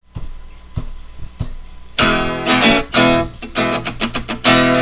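Intro music of strummed guitar. A few soft strokes open it, then loud, ringing chords are strummed about twice a second from about two seconds in.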